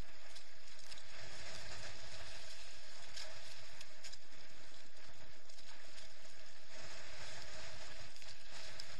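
Gusting wind and choppy water rushing past a sailing kayak, with waves slapping the hull and spray rattling against the camera. A steady hum runs under the noise.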